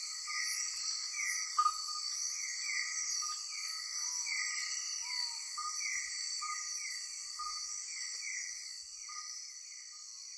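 Night chorus of insects: a steady high shrill under several layers of short chirps and falling notes repeating a few times a second, fading out near the end.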